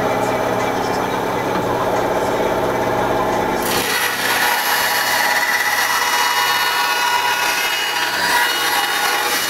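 Ryobi bandsaw running with a steady motor hum; about three and a half seconds in, the blade starts cutting into the Kydex holster sheet and a loud rasping hiss joins the hum and carries on.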